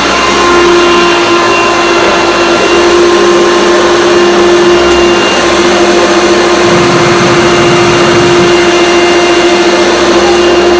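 A 1975 Hoover Convertible U5002 upright vacuum cleaner with an 800-watt motor running with a steady, loud hum; a lower rumble joins about two-thirds of the way through. The owner thinks it might need a new drive belt.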